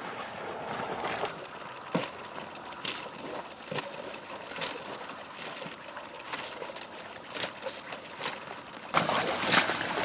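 Quiet marsh water with scattered small splashes and ticks; about nine seconds in, louder sloshing of someone wading through shallow water in waders.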